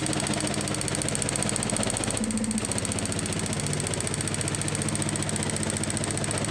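Juki AMS-221F computer-controlled pattern sewing machine running, stitching through Velcro and webbing with a fast, even stitch rhythm.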